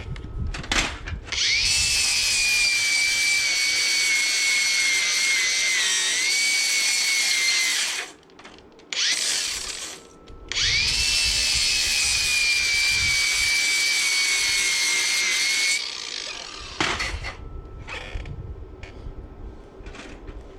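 Electric angle grinder cleaning up steel, run in two long passes of several seconds each with short blips of the trigger around them. Its whine jumps up as it spins up, then sags slightly in pitch while it bears on the metal.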